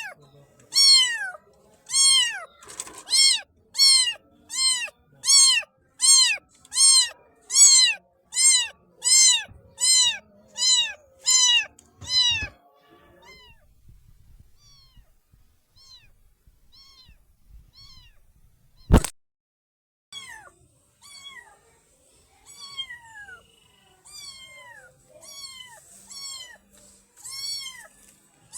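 Baby kitten meowing over and over: short, high calls that rise and fall in pitch, more than one a second. Around the middle the meows turn faint and sparse, a single sharp click cuts in, and then louder meows pick up again near the end.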